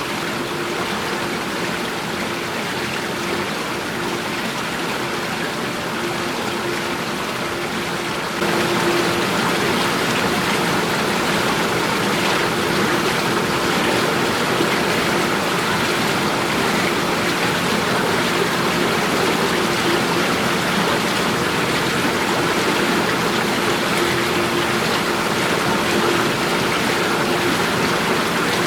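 Steady rush of running water from a garden stream or cascade. It gets louder about eight seconds in, with a faint steady hum underneath.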